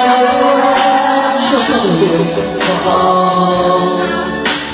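A man singing a Vietnamese pop ballad into a handheld microphone over a backing track, through a sound system that the uploader calls poor.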